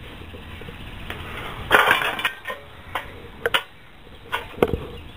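Metal tools and engine parts clinking and knocking as a small engine is taken apart, with a short scraping rattle about two seconds in and several sharp clinks after it.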